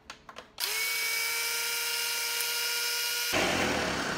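Countertop blender switched on: its motor starts about half a second in and spins up to a steady high whine as it blends almond milk, protein powder and frozen raspberries. About three seconds in, the whine gives way to a louder, rougher churning.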